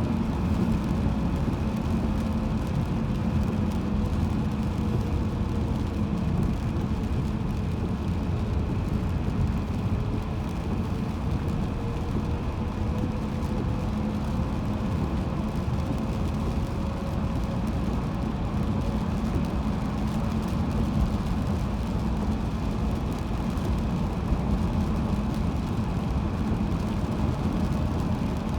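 Steady road noise of a car driving on the highway, with a faint tone that slowly dips and rises in pitch.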